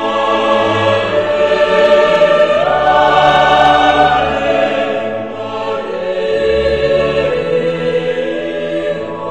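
Choral music: a choir singing a slow sacred piece in long-held notes, the melody stepping up in pitch about two and a half seconds in.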